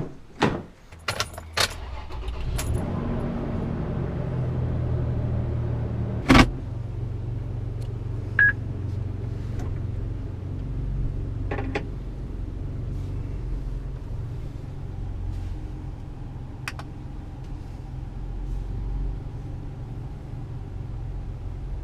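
A few sharp clicks and knocks, then a vehicle engine running steadily, a low, even hum, with one loud knock about six seconds in and a few lighter clicks later.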